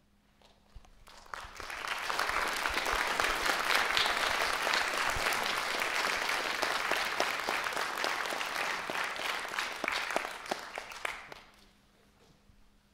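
Concert audience applauding, building up about a second in and dying away near the end.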